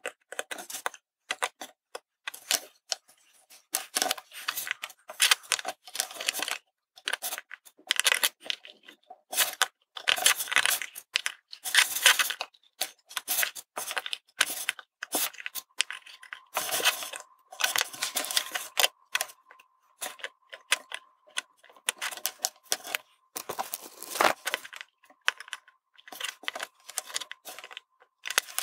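Small clicks, taps and scrapes of tweezers, a soldering iron and a circuit board being handled on a wooden tabletop during soldering, in irregular bursts. A faint steady whine comes in about halfway through.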